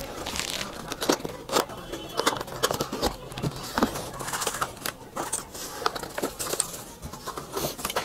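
Cardboard box being opened and handled by hand, with crinkling and rustling of the thin foam wrapping sheet inside and scattered small knocks and scrapes of the box.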